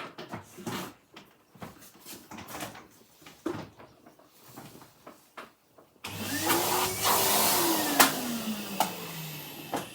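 Scattered knocks and clicks of handling, then about six seconds in a vacuum cleaner switches on abruptly, its motor whine climbing. After a sharp click about two seconds later, the whine slides down as the motor winds down.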